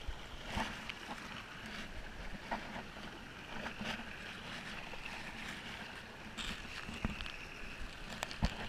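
Steady rush of flowing water echoing in a narrow rock canyon, with scattered knocks and scrapes of the camera brushing against the rock.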